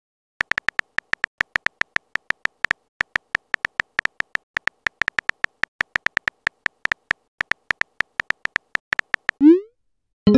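Phone-keyboard typing clicks from a texting-story animation: a long, irregular run of short, high ticks, about five a second, one for each letter typed. Near the end comes a short rising swoosh as the message is sent.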